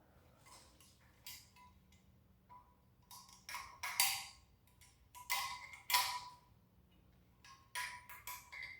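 Scattered clicks and clacks of an automatic wire stripper and a copper ground wire being worked at a metal electrical box, in small clusters with a faint metallic ring; the loudest come about four and six seconds in.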